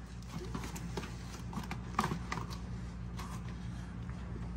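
Light, irregular taps and handling noises as the door's plastic water shield is pressed back into place, the clearest tap about two seconds in, over a steady low hum.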